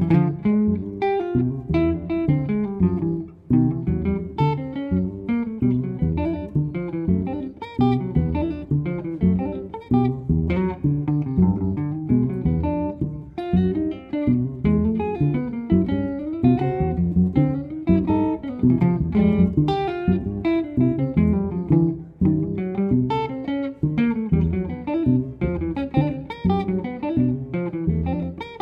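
Jazz duo of hollow-body archtop guitar and upright double bass playing. The guitar plays a busy line of quick plucked notes over the bass.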